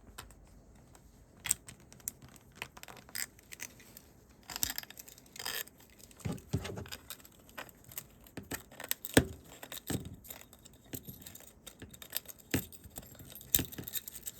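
Small metal parts handled at close range: irregular clicks, scrapes and light jingling as titanium key rings are worked on, with a sharper click about nine seconds in and two more near the end.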